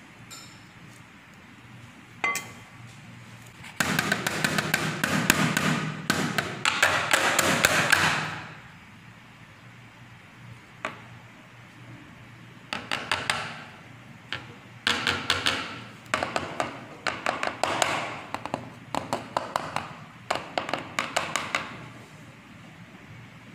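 Chocolate mold filled with tempered dark chocolate rapped quickly and repeatedly on a stone counter, in several bursts of rapid taps a few seconds long. This is the usual way to knock air bubbles out of the chocolate and settle it into the cavities.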